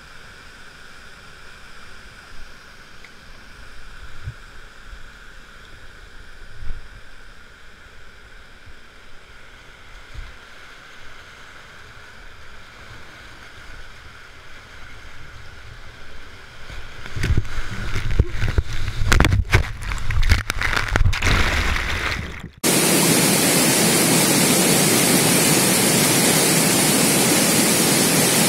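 River rapids rushing around a whitewater kayak, heard from the boat; the rushing grows louder and choppier with uneven splashes as the kayak drops through the rapid. It then cuts off abruptly to the loud, steady rush of a waterfall pouring into its pool.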